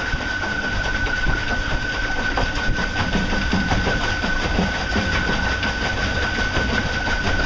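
Golden Motor L-05 electric outboard running at low power on solar panels alone: a steady high whine over a low rumble of water and hull, with a rattling vibration that the owner traces to loosely tightened fasteners.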